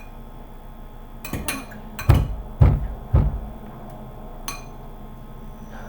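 A utensil clinking and knocking against a bowl or dish: a few light clinks, then three heavier knocks about half a second apart, then one more clink.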